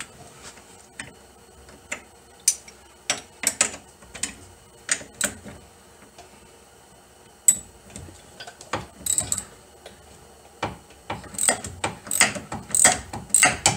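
Socket ratchet clicking in short runs as it turns the bolt out of a sway bar end link, with scattered clinks of metal tools. The clicking comes quicker and denser near the end.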